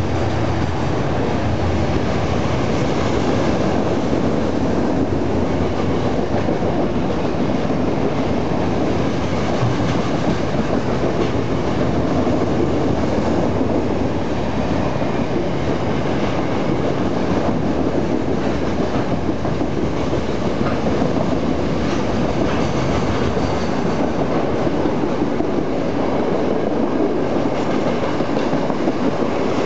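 Freight train wagons rolling past steadily and loudly, with the wheels clattering over the rail joints.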